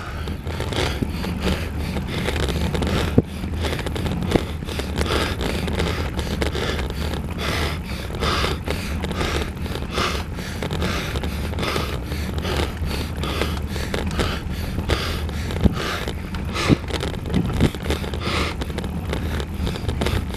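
Wind and ride noise on a camera carried on a road bicycle climbing a steep grade: a steady low rumble with a soft, regular pulse a little more than once a second.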